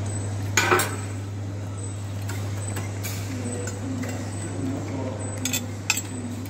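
Metal utensils clinking sharply: a loud cluster of clinks about half a second in and a few lighter ones near the end, over a steady low hum and faint background chatter.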